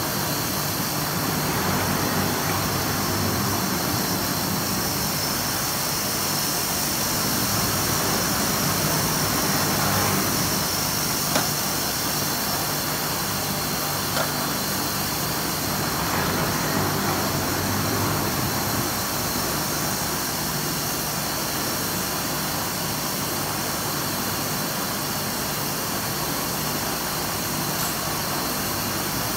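Foam cutting machine running steadily, a mechanical hum with a high hiss, while its conveyor table carries a foam slab through the cutter. Two short clicks a few seconds apart near the middle.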